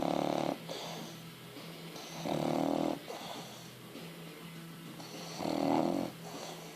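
French bulldog snoring in its sleep: three loud, rough snores about three seconds apart, each under a second long, with quieter breaths in between.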